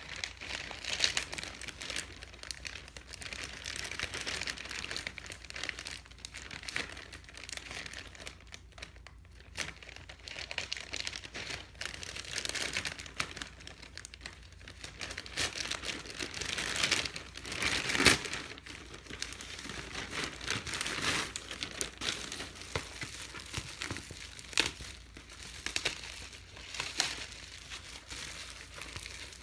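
Packaging being handled and opened by hand: irregular crinkling and rustling with scattered sharp crackles, the loudest about two thirds of the way through.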